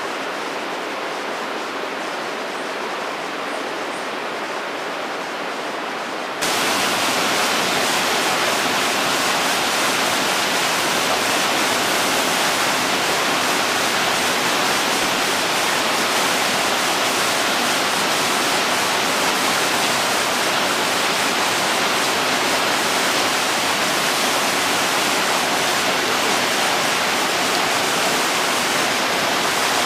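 Steady rush of water flowing over the rocks of a stony mountain river. About six seconds in it jumps suddenly louder and brighter, the rush of a small waterfall and cascades over rocks, and stays steady.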